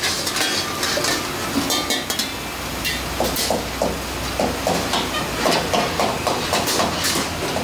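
Metal tongs clinking against steel wok lids and woks over the steady roar of gas burners and food sizzling in the woks. From about three seconds in, a quick run of even, repeated knocks.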